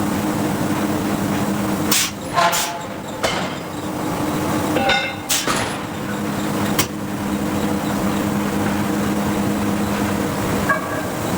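Hydraulic forging hammer shop machinery running with a steady hum, broken by a series of sharp metallic strikes and clanks, some of them ringing briefly. The strikes come about two seconds in and again around five to seven seconds in.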